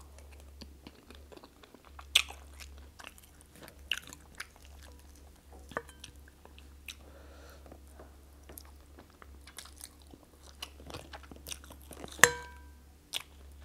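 Close-up eating sounds: chewing, biting and wet mouth clicks as chicken and plantain in pepper soup are eaten. A metal spoon clinks against the ceramic bowl now and then. The loudest clink, near the end, rings briefly.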